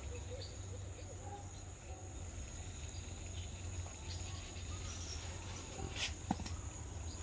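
Outdoor rural ambience: a steady high insect trill over a low rumble, with a single sharp click about six seconds in.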